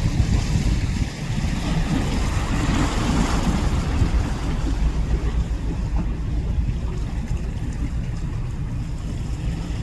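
Wind buffeting the microphone in a heavy, irregular rumble, over the rush of waves on rough water.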